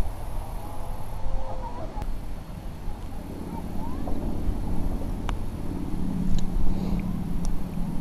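Wind buffeting the microphone, with a few sharp clicks from fingers handling a wire-coil cage feeder. A steady low hum comes in about three seconds in.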